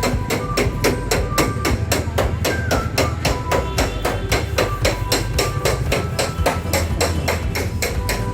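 Rapid, even hammer blows on car body sheet metal, about five a second, with a faint metallic ring: panel beating to knock out dents before filler and paint.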